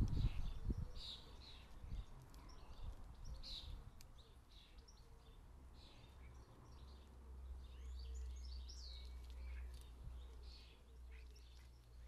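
Small garden birds chirping and twittering, many short high calls scattered throughout. A faint low rumble swells in the middle.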